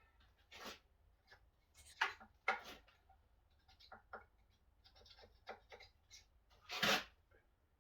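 Scattered scrapes and clicks of hand tools and metal parts being worked while dismantling an old power hacksaw, with a louder rasp near the end.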